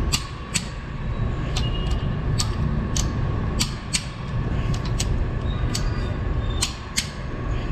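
Click-type torque wrench set to 85 Nm tightening engine bolts: a string of sharp, irregular clicks, about one to two a second, over a steady low workshop rumble.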